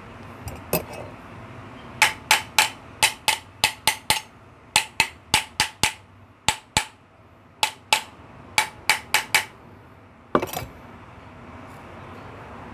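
Hammer tapping on metal washing-machine motor parts to fit them together: about twenty sharp taps in quick runs of two to five, each ringing briefly, then one louder clatter about ten seconds in.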